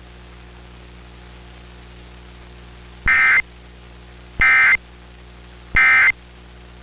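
Three short bursts of Emergency Alert System SAME data tones, each about a third of a second and about 1.3 s apart, over a steady hum and hiss. These are the end-of-message code that closes the tornado warning broadcast.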